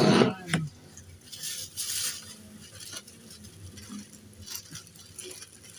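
Rustling and light clattering from microphone-kit parts and their plastic packaging being handled, loudest in a burst in the first half-second, then scattered softer rustles and clicks.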